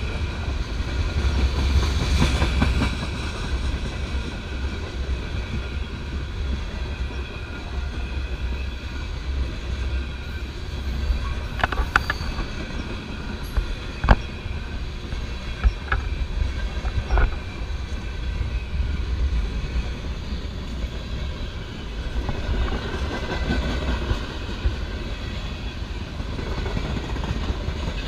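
CSX freight train of open hopper and gondola cars rolling past: a steady rumble of wheels on rail, with a few sharp clanks between about 12 and 17 seconds in, the loudest about 14 seconds in.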